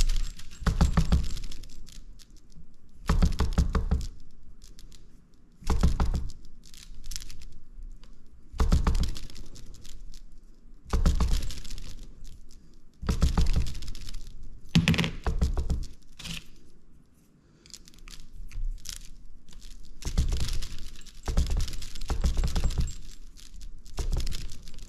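Pitman arm of a Delphi 670/680 power steering gearbox being rocked back and forth by hand, giving short bursts of clunking and rattling about every two seconds, with a pause of a few seconds past the middle. The clunks are the gear lash between the sector shaft teeth and the piston rack, being taken out a quarter turn of the adjuster at a time.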